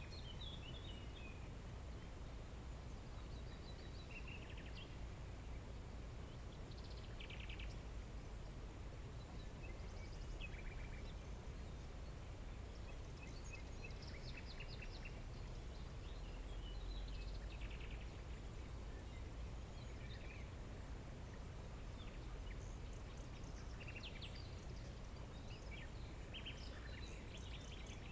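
Wild birds calling intermittently, short chirps and trills scattered throughout, over a steady low background rumble.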